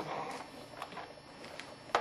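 A few light knocks and clicks of small things being handled, with one sharper click near the end.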